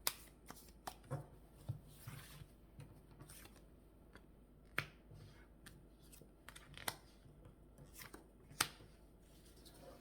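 Tarot cards being shuffled and handled, a run of soft card flicks and taps with a few sharper snaps.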